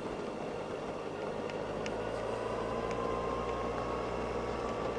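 Suzuki Burgman 650 maxi-scooter under way: steady engine, wind and road noise, with a faint whine slowly rising in pitch from about two seconds in.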